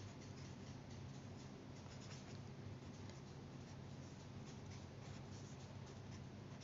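Felt-tip pen writing on paper: faint, quick scratching strokes as letters are written, over a low steady hum.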